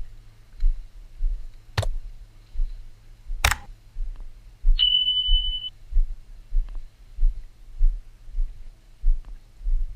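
Footfalls thudding at a steady walking pace, about three every two seconds. Two sharp cracks come about two and three and a half seconds in, and a short high beep sounds just under a second long about five seconds in.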